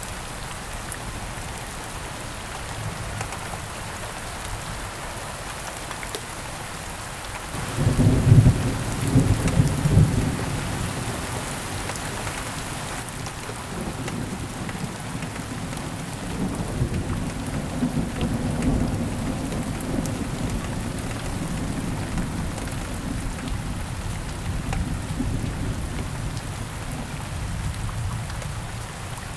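Steady rain falling, with a clap of thunder about eight seconds in that breaks into a loud low rumble and then rolls on more quietly for most of the rest, fading near the end.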